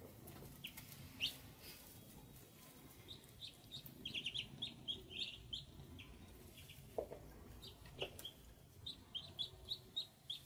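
Ducklings peeping: short, high cheeps in quick runs, busiest around four to five seconds in and again near the end, with a few brief rustles in between.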